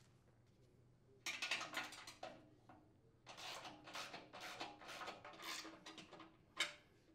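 Socket ratchet and wrench working a nut and bolt on a sheet-steel housing: rapid metallic ratchet clicking with light clinks of the tools. The clicking starts about a second in and runs in two stretches, with a sharp click near the end.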